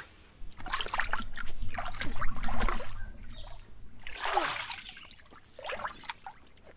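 Water splashing and sloshing in a shallow inflatable paddling pool as a child moves and slaps at the water, in several bursts, the busiest during the first three seconds.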